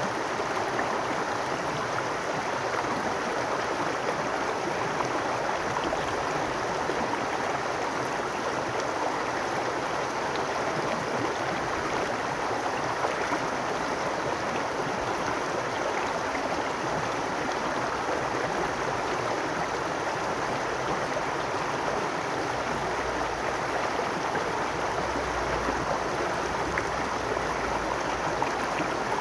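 Babbling brook: water running steadily over stones, an even rushing with small splashes and trickles scattered through it.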